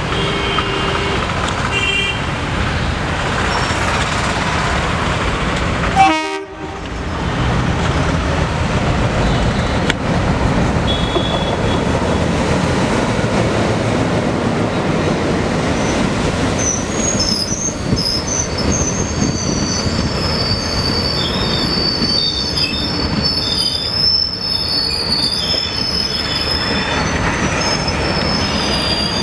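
Twin ALCo WDG-3A diesel locomotives hauling a passenger train past at speed: two short horn toots at the start, then the heavy running of the engines and the rumble of the wheels on the rails as the locomotives and coaches go by, with a sharp bang and a brief cut-out in the sound about six seconds in. From a little past halfway, a high wavering wheel squeal as the train rounds the curve.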